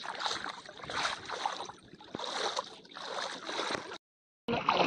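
Creek water swishing and sloshing in repeated swells as people wade and sweep a bamboo-poled fishing net through it. The sound drops out for about half a second near the end.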